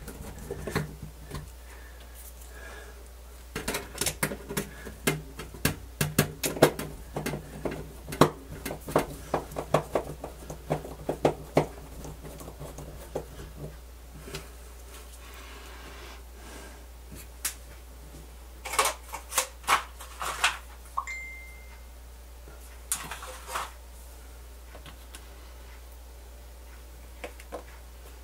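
Clicks, taps and light knocks of screws and the sheet-metal bottom cover of a cassette deck being handled and fitted. The clicking is dense for about ten seconds, over a low steady hum, then comes again in short clusters later on.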